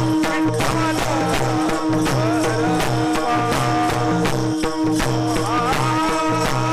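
Marathi devotional kirtan music: a melody that bends in pitch over a steady held drone, with a regular percussion beat.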